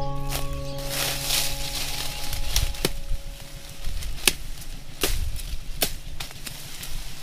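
A handful of sharp knocks or snaps, irregularly spaced, over a rustling background, while the last notes of chiming music ring out and fade over the first two seconds or so.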